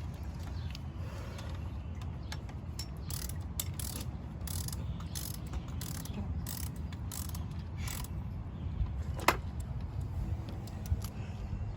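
Ratchet wrench clicking in a run of short strokes, about two clicks a second, over a steady low background rumble, followed by a single sharper metal click.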